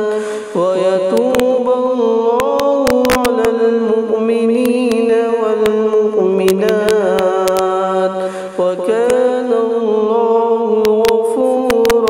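Melodic Quran recitation: a single voice drawn out in long, ornamented held notes, breaking briefly twice for breath, about half a second in and again around eight and a half seconds in.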